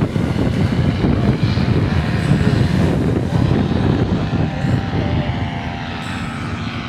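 Paramotor engine and propeller running steadily under a heavy low rumble of wind on the microphone, easing off a little near the end.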